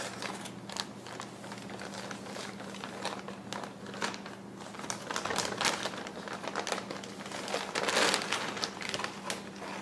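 Plastic packaging crinkling and rustling in irregular handling bursts as a new computer motherboard is unwrapped, busiest about eight seconds in.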